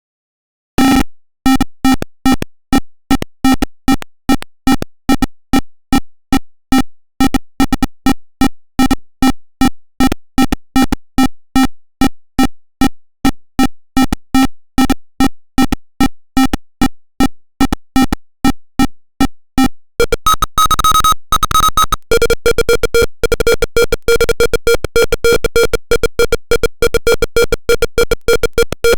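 Simulated piezo buzzer of an Arduino proximity alarm in Tinkercad, beeping a low electronic tone about two to three times a second. About twenty seconds in it switches to a higher-pitched, faster beeping. The change of tone marks the measured distance dropping into a closer alarm range.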